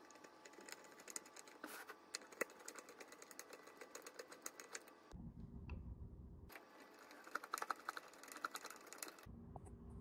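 Faint, rapid clicking and creaking of a hand screwdriver driving small wood screws through a metal lock catch into a pine board. The clicks come in two runs with a short break about five seconds in.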